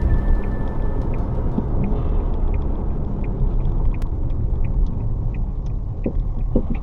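Suzuki Alto Works on the move: a steady low rumble of road and engine noise, with a faint tick repeating about every two-thirds of a second and a few knocks near the end.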